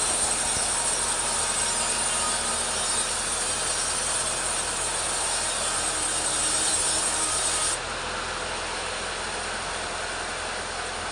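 Petrol chainsaw ripping teak lengthwise, running steadily at full throttle with the hiss of the chain cutting wood. About three-quarters of the way through, the high hiss drops away and the saw runs on a little quieter.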